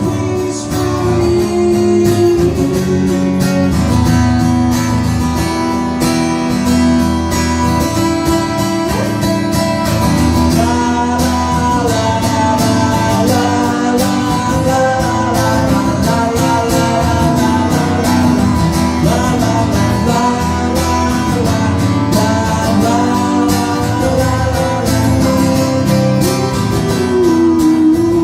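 Music: guitar playing an instrumental passage, with strummed chords under a bending melody line.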